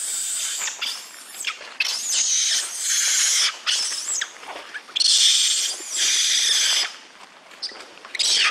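Baby long-tailed macaque screaming in distress: several long, shrill screams with short gaps between them.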